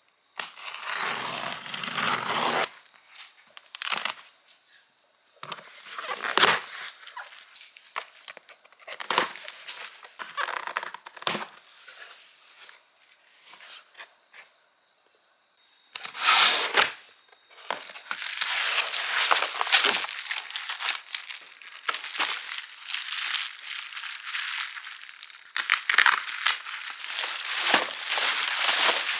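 Packaging being handled and opened: wrapping crinkling, rustling and tearing in uneven bursts, with scattered clicks and knocks. The loudest burst comes a little past the middle, followed by a long stretch of steady rustling.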